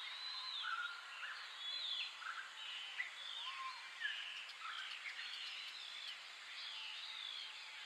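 Several birds chirping and whistling over a steady outdoor hiss: many short calls, some rising or falling in pitch, overlapping throughout.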